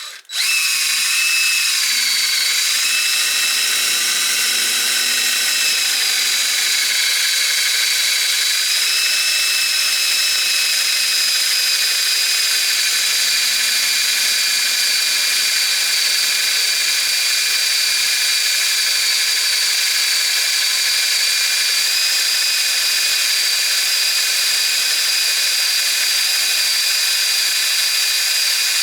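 Power drill running at full speed, its bit boring through a workpiece, with a steady high whine. The pitch sags slightly a couple of times early on as the bit loads up.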